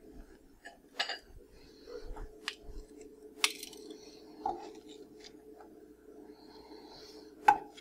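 Kitchen tongs clicking and scraping against a skillet as fried bacon strips are lifted out: a handful of separate sharp clinks, the loudest near the end.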